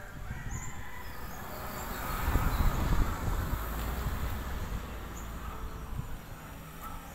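Low rumble of wind and handling on a phone's microphone, loudest a couple of seconds in, over an outdoor background with a few faint bird chirps.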